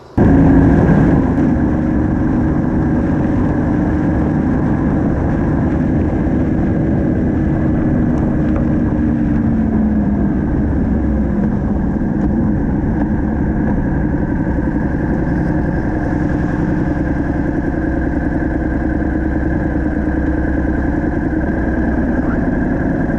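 Yamaha MT-07's parallel-twin engine heard from the bike while riding at low speed. The engine note falls about ten seconds in as the bike slows, then runs on steadily at low revs.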